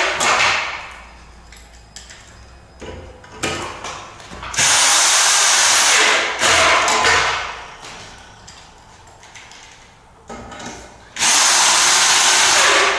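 A powerful drill running in bursts of one to two seconds, spinning the upper nuts down the threaded anchor studs onto adjustable timber floor joists, with knocks and clicks between the bursts.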